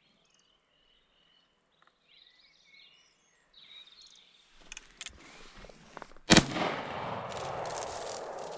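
A single shotgun shot about six seconds in, after a quiet stretch with faint bird calls; a rushing noise trails on for a couple of seconds after the shot.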